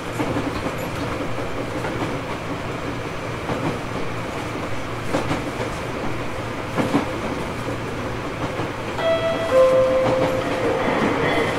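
Tobu 850 series electric train running along the line: a steady rumble of wheels on rail with occasional rail-joint clicks. About nine seconds in, a steady ringing tone joins and steps down in pitch as the train passes it.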